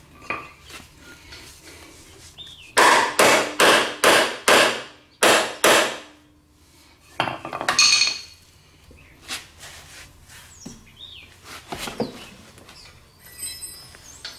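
Sharp metallic blows on a gear puller loading a rust-seized lawnmower blade adaptor: about eight in quick succession a few seconds in, then two more spaced out later. The adaptor is stubbornly stuck.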